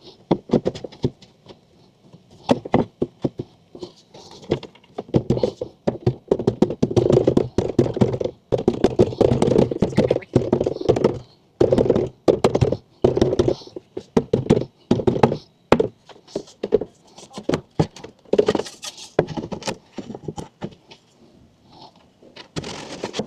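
Repeated thunks, knocks and taps of camper platform panels and parts being handled and fitted in the vehicle's cargo area, some in quick runs and busiest in the middle stretch.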